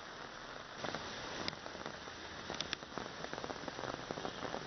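Heavy rain falling on a paved road: a steady hiss with scattered sharp ticks of drops, and a few louder clicks about halfway through.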